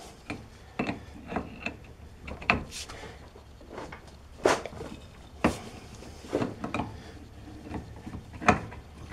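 Wrench and ratchet working the axle nut on an ATV's rear hub: a scattered series of short sharp knocks and clicks, eight or so at irregular intervals, as the nut is run down and the tool is repositioned.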